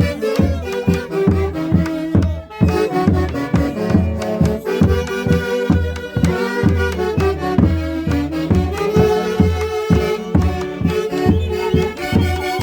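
Andean folk orchestra playing a Santiago tune: a melody over a steady pulsing beat.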